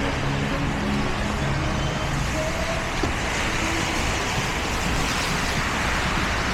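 Road traffic on a snowy street: cars driving past with tyres hissing through the slush, swelling as a vehicle passes from about three seconds in.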